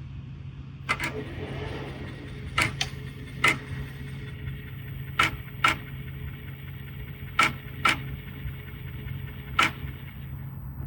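AKAI MPC 60 drum machine being tried out just after power-up: nine short, sharp hits at irregular spacing, several in pairs, over a steady low hum.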